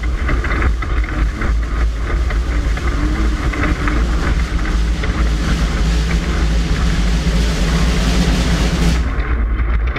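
Class 5/1600 off-road race car running hard over rough ground: a steady engine hum under a loud rumble and dense rattling clatter. The high hiss drops away about nine seconds in.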